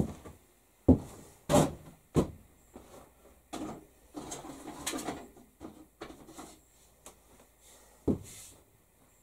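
Several sharp knocks and clunks, four of them close together in the first couple of seconds and one more near the end, with quieter scuffling and handling noise between.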